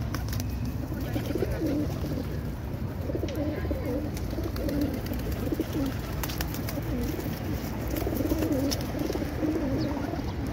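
Several pigeons cooing over and over in low, throaty, wavering phrases, with a few brief sharp clicks among them and a low steady rumble beneath.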